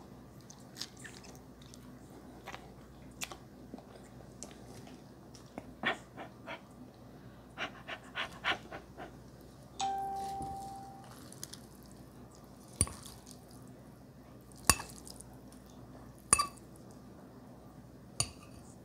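Close-miked eating: a metal fork clinking and scraping against a glass bowl while twirling noodles, with small mouth and chewing clicks. About ten seconds in, the glass bowl rings briefly with a clear tone that fades, and four sharp clinks come in the second half.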